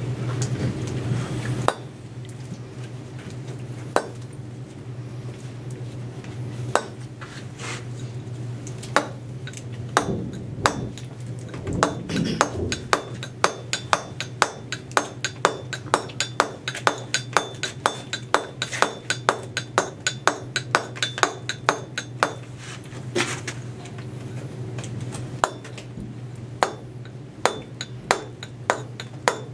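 Stonemason's steel chisel being struck repeatedly, cutting a chamfer into a block of pale stone. A few scattered strikes come first, then a steady run of about three to four sharp taps a second, with a short pause a little past two-thirds of the way through.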